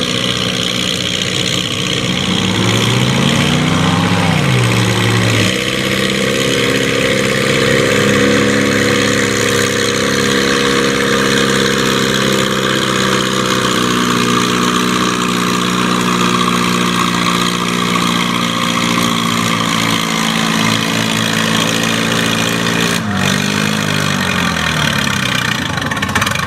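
Pulling farm tractor's engine running hard under load, holding a steady high pitch for most of the run. Near the end it comes off the throttle and the pitch drops.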